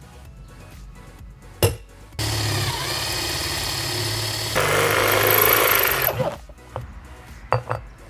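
A single sharp hammer blow on a punch, then a power drill boring through the steel center disc of a small wheel for about four seconds, getting louder and harsher about halfway through as the bit cuts. A few light clicks near the end, over background music.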